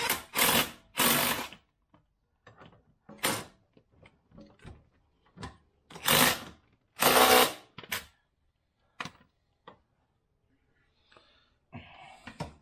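Cordless impact wrench firing in about five short bursts while tightening bolts, with lighter clicks and clanks of tools in between.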